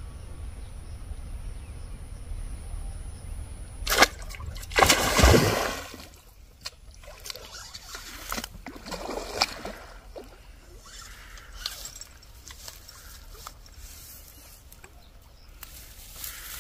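About four seconds in, a sudden loud splash and thrashing as a freshly hooked fish fights at the surface, followed by smaller intermittent splashes and sloshing while it is played on the float rod. Low wind rumble before the strike.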